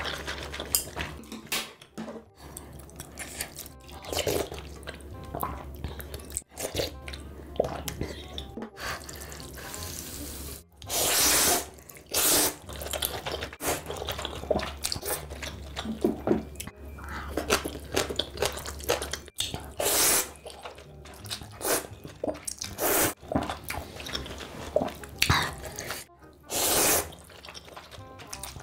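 Person slurping mouthfuls of spicy ramen noodles over and over, loud wet slurps with quieter wet mouth sounds between them. One long slurp comes about 11 seconds in.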